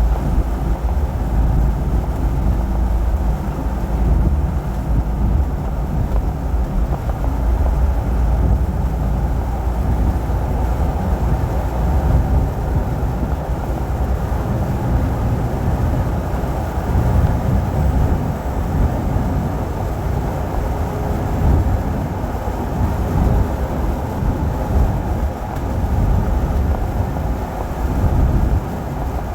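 Steady low road and engine rumble of a truck on the move, unbroken throughout.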